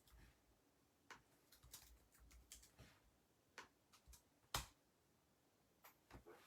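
Faint, irregular clicks of typing on a computer keyboard, with one louder click about four and a half seconds in.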